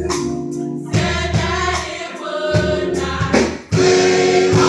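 Gospel choir singing sustained chords. The sound dips briefly about three and a half seconds in, then comes back fuller.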